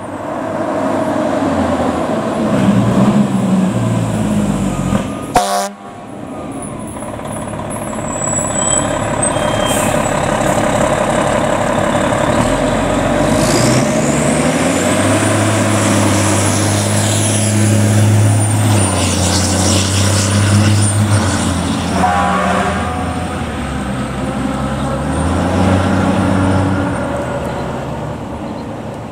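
Fire engines driving past on an emergency response, their diesel engines running, with a brief break in the sound about five and a half seconds in.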